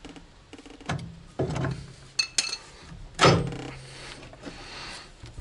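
Metal knocks and clanks as a car's front suspension strut is forced down into the steering knuckle, several sharp hits with a metallic ring, the loudest about three seconds in.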